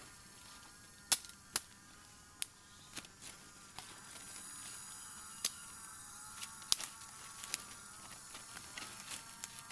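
Dry twigs and branches snapping and cracking as they are broken and gathered by hand: about seven sharp snaps at uneven intervals, the loudest a little over a second in, with steady thin high tones behind.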